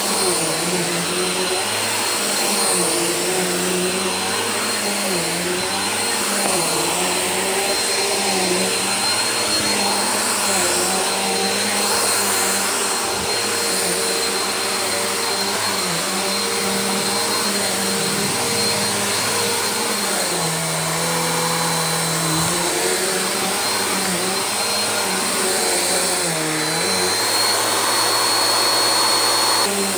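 Bissell upright cleaner's motor running steadily over carpet, with a constant high whine. Its lower hum shifts slightly in pitch as the cleaner is pushed back and forth.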